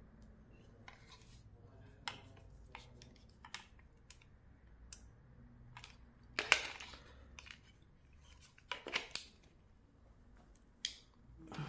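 Faint, scattered clicks and taps of a phone stand's parts being handled and fitted together, with a louder rattle of clicks about six and a half seconds in and another pair near nine seconds.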